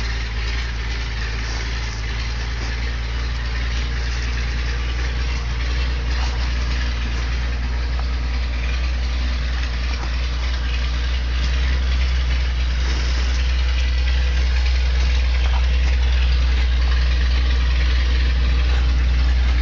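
GMC 6x6 truck's engine running with a steady low drone as the truck drives slowly through snow, gradually getting louder toward the end.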